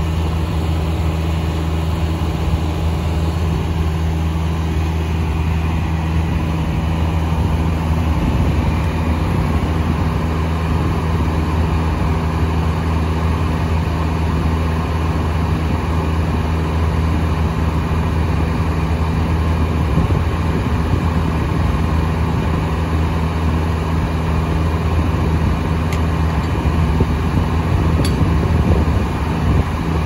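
Tractor engine running steadily at a constant speed.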